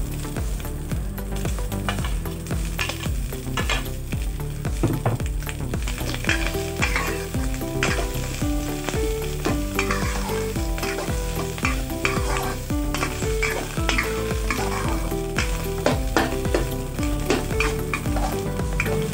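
Meatballs, sausage slices and chilies sizzling in a wok as a spatula stir-fries them, with frequent scrapes and taps of the spatula against the pan.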